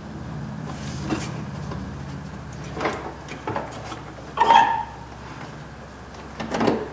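Scattered knocks and clunks as hands handle a car door's inner panel and wiring harness. The loudest knock, with a short ring, comes about halfway through, over a steady low hum.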